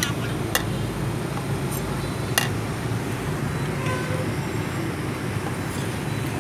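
Steady low background rumble, with a few sharp clicks.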